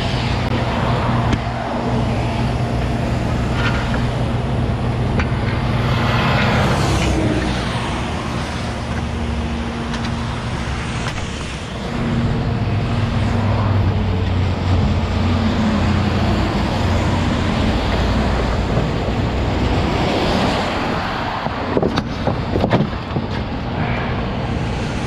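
Freeway traffic rushing past, with a tow truck's engine idling steadily close by. A few sharp metal clanks come near the end.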